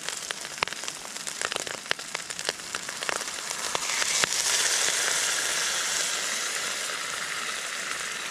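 Hot water poured from a thermos into a hot, oily wok of fried rice: crackling frying at first, then, about four seconds in, a loud sizzling hiss of water flashing to steam that slowly fades.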